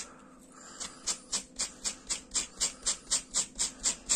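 A brush raking rapidly through the acrylic yarn hair of a crocheted toy, about four short scratchy strokes a second, starting about a second in: the yarn strands are being brushed out and fluffed into fur.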